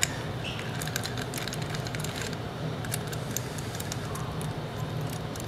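Light, irregular metallic clicks and ticks as the small engine's valve cover bolts are worked out by hand and handled, over a steady low hum.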